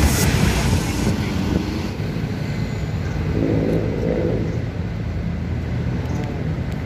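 City road traffic: vehicle engines running and passing along a busy street.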